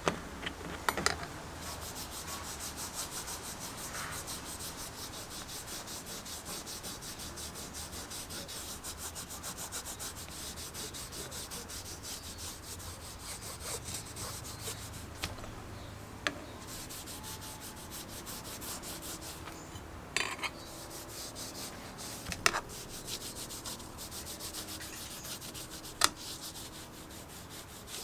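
Hand sanding: fast, steady back-and-forth rubbing strokes of sandpaper on the tool, broken by a few sharp knocks.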